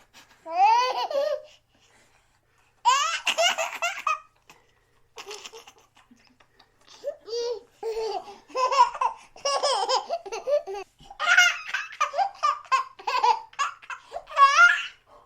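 Small child laughing while being tickled: bursts of high-pitched squealing giggles broken by short pauses, running almost without a break in the second half.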